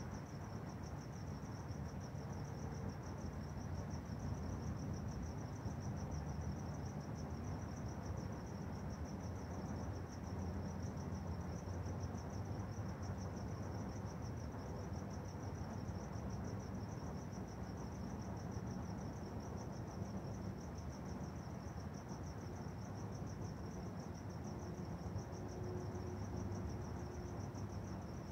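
A cricket chirping in a steady, evenly pulsing high trill over a low, steady background rumble.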